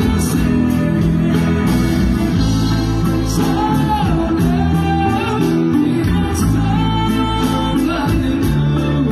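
A band playing: a singer over guitars with a steady beat.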